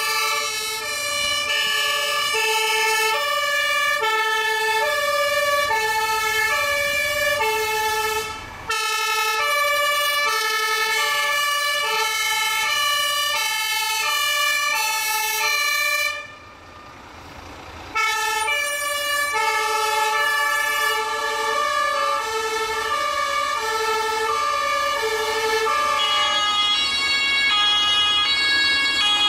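Fire engines' German two-tone sirens (Martinshorn) sounding together, each alternating between a lower and a higher tone about once a second, over the trucks' engines. The sirens break off briefly twice, once for about two seconds past the middle.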